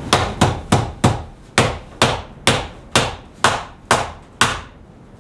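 A run of eleven sharp hammer blows, about two a second, with a short pause after the fourth; each strike rings briefly in the room.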